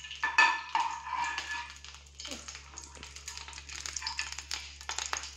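Steel ladle spreading ghee around a hot nonstick frying pan: light scraping and clicks of metal on the pan, with a faint sizzle from the ghee.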